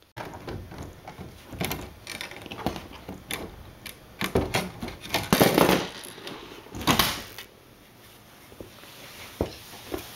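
Irregular scraping and knocking of hand work on a door: a coping saw cutting a thin wooden strip, then a plastic pet-door frame being handled and fitted into the cut-out hole. The loudest stretch comes in the middle, and it goes quieter near the end, with one sharp click.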